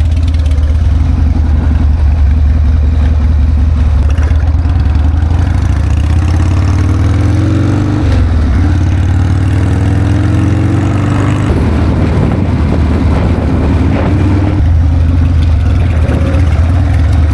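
Harley-Davidson V-twin motorcycle engine running loud under way, pulling through the gears. Its note rises, drops sharply about eight seconds in and again a few seconds later as it shifts up, over a rush of wind noise.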